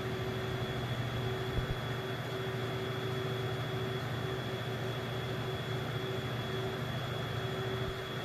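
Cooling fan of an opened-up DLP projector running steadily, with a low hum and a thin high whine.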